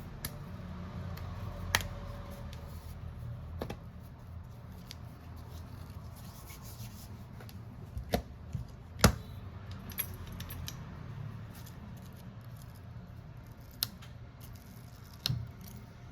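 Scattered small clicks and taps of hand tools on a phone being taken apart, the sharpest about nine seconds in, over a low steady hum.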